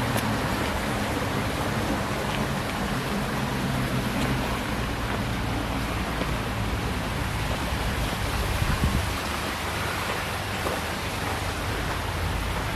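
Water running steadily in a garden stream over stones, an even rushing sound.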